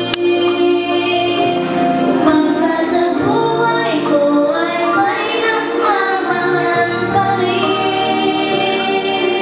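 Young girls singing into microphones over musical accompaniment, with held notes and pitch glides. A brief sharp click comes right at the start.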